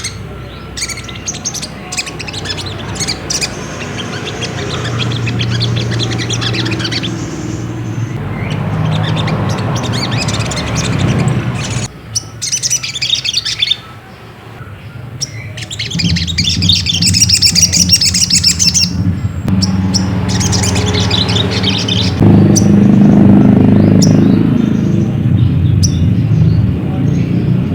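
Sogok ontong (little spiderhunter) chirping in rapid, repeated runs of high calls, a lure recording used to provoke a caged bird into calling, with a steady low hum beneath.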